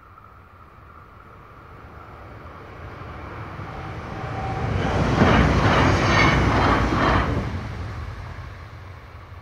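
Class 425 electric multiple unit passing at speed over the level crossing. Its running noise rises as it approaches, peaks for about two seconds with a rapid clatter of wheels over the rails, then dies away.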